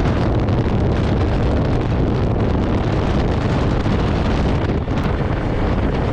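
Heavy wind noise rushing over the microphone of a moving motorcycle, with the steady low drone of the Honda CRF300L Rally's single-cylinder engine and road noise underneath.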